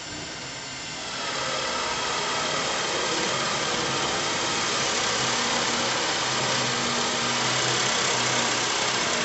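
Worx Switchdriver cordless drill boring a 1-inch spade bit into a pine board, its motor running steadily under load as the bit cuts the wood. It gets louder about a second in, as the bit bites deeper.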